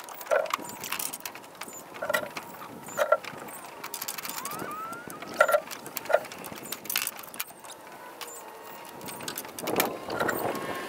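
Rough-sawn oak boards and thin wooden stickers knocking and clattering as they are handled and stacked, a string of irregular sharp wooden knocks. Birds call faintly in the background.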